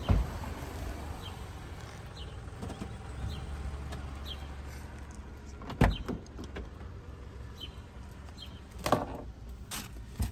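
A car door shuts with a thump about six seconds in, and a few more clunks follow near the end, over a low steady rumble.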